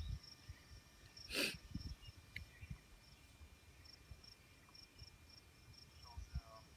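Faint high insect chirping in short, uneven pulses over low rumbling, with one brief whoosh about a second and a half in.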